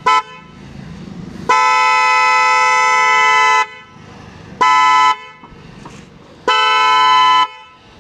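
Bosch Symphony trumpet-style car horns sounding in four blasts: a short toot at the start, a long blast of about two seconds, another short toot, then a one-second blast near the end. A steady, quite loud horn tone with no pitch change.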